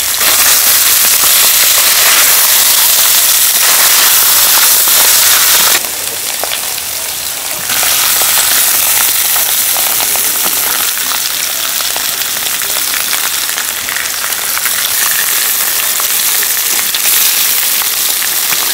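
Pig intestines sizzling and crackling on a large hot iron griddle as they fry. The sizzle is steady and dense, dropping a little quieter for a couple of seconds about six seconds in.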